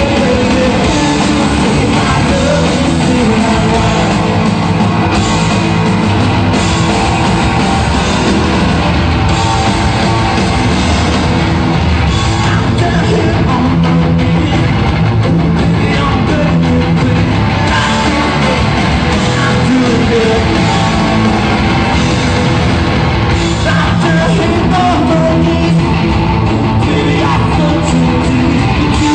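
Live rock band playing loud and steady: electric guitar, bass guitar and drums, with a man singing at the microphone.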